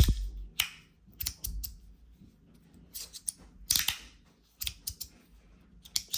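Top Speed Slider fidget by YEDZ being slid back and forth by hand, its slide snapping into place with sharp clicks. The clicks come irregularly, some singly and some in quick clusters of two or three.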